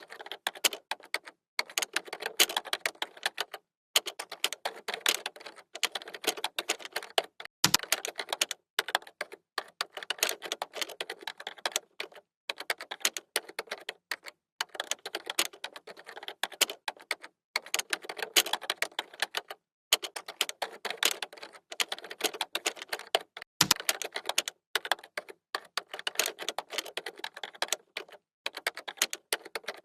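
Computer keyboard typing: fast runs of key clicks with brief pauses between them. Twice there is a heavier, lower thump among the keystrokes.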